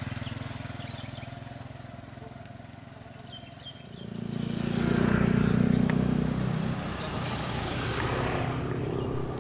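Motor vehicle engines passing by: one fades away at first, then a louder one approaches about four seconds in, goes past and eases off.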